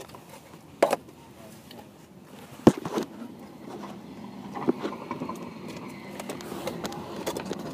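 Two sharp knocks of a phone being handled, about two seconds apart, the second louder, then the low steady hum of a car moving through city traffic.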